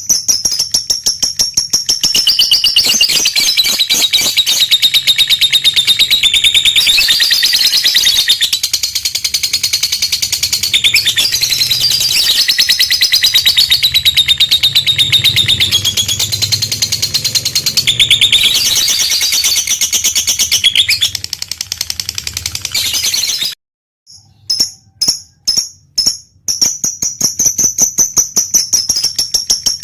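Lovebird giving its long, rapid, high-pitched chattering trill (the 'ngekek' song of a fighter lovebird). It breaks off suddenly about three-quarters of the way through, gives a few short bursts, then goes back into the trill.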